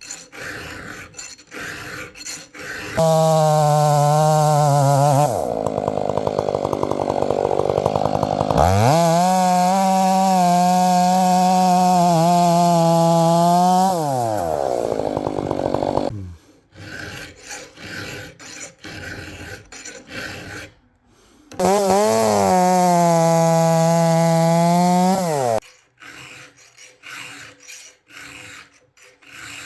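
Hand file rasping across a chainsaw chain in short, even strokes, interrupted twice by the chainsaw running at high revs: first for about ten seconds before winding down, then again for about four seconds near the end.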